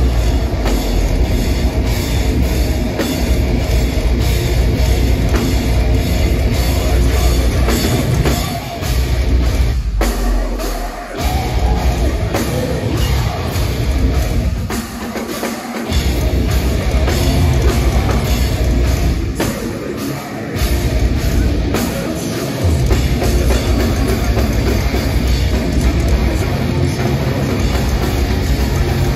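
Heavy metal band playing live through a venue PA, heard from within the crowd: distorted guitars, bass and heavy drums. The low end cuts out briefly several times, in short stops before the band comes back in.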